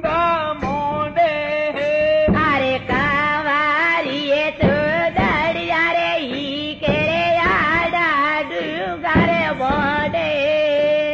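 Music with a solo voice singing an ornamented melody that bends and wavers in pitch, with short breaks between phrases.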